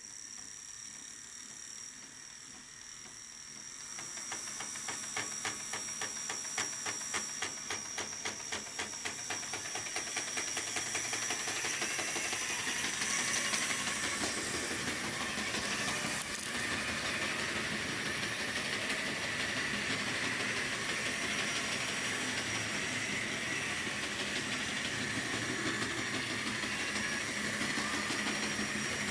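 Tyco HO-scale electric model train running on its track: a steady motor whine and hiss, with rhythmic clicking of the wheels, about four a second, for several seconds early on, and the running growing louder twice.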